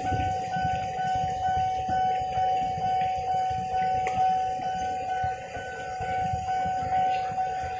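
Railway level-crossing warning bell ringing steadily at about two strokes a second, the sign that the gates are down for an approaching commuter train. A crowd of idling motorcycle engines rumbles underneath.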